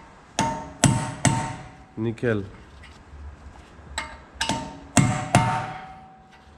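Hammer blows on metal at a car's front wheel hub, driving the driveshaft end back through the hub with the loosened hub nut left on so the shaft end doesn't mushroom. Six ringing metal strikes in two sets of three, about half a second apart.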